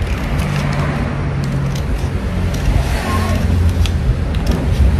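Scissors snipping through paper, several short sharp snips, over a steady low engine-like hum that is louder than the snips.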